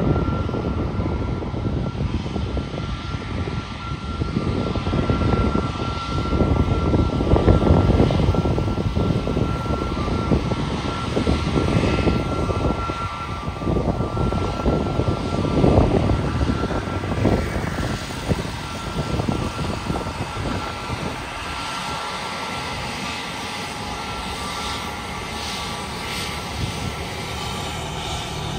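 Airbus A321 jet's engines running at taxi power as it rolls along the runway: a steady high whine over a low rumble that swells and dips. It grows a little fainter and steadier in the last third as the jet moves away.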